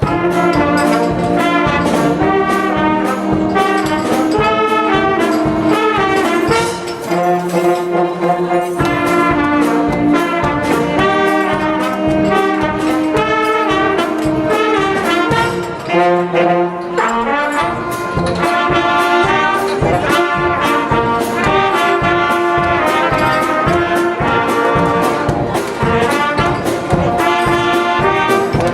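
Dance band with a brass section playing an upbeat tune over a steady drum beat, with trombones and trumpets carrying the melody.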